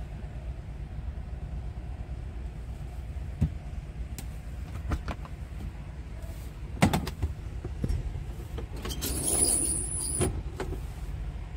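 Scania R tractor unit's diesel engine idling, a steady low rumble heard from inside the cab. A few sharp clicks and knocks cut through it, with a brief rustling scrape about nine to ten seconds in.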